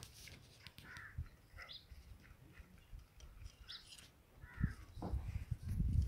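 A few faint, short animal calls over light rustling, with a low rumbling noise building near the end.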